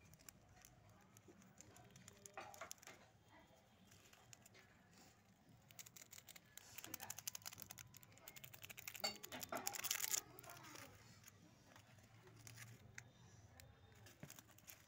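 Small plastic condiment sachets being torn open and crinkled by hand, with a louder run of crinkling and rustling between about six and ten seconds in; faint the rest of the time.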